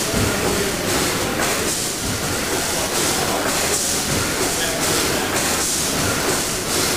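Triple-expansion steam pumping engine running: a steady mechanical clatter of its cranks, rods and valve gear with a steam hiss that surges in an even rhythm a little more than once a second.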